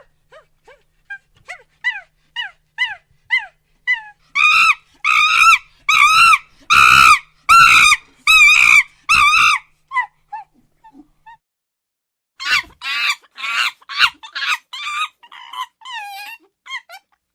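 Monkey calling: a string of short falling chirps builds into a run of loud calls about twice a second, then, after a short lull, a second run of loud calls.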